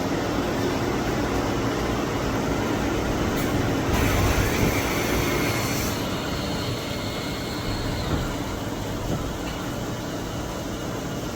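2015 Tsugami BO325-II CNC Swiss-type lathe running a program dry, with a steady machine hum. About four seconds in a hiss and high whine from its tooling rise for a couple of seconds, then ease off.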